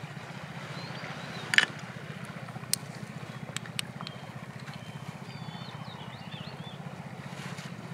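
A steady low pulsing hum runs under a few sharp clicks and one louder knock about a second and a half in, as the hammer, chisel and stone are handled on the rock. Faint bird chirps come in past the middle.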